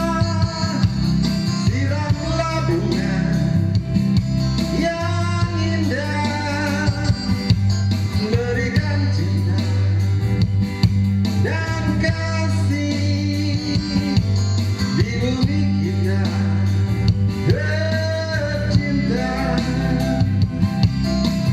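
Pop song playing: held bass and guitar chords under a lead melody line that slides between notes.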